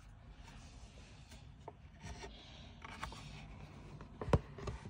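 Cardboard pages of a board book being handled and moved: faint rubbing and sliding with a few light taps, the sharpest a little after four seconds in.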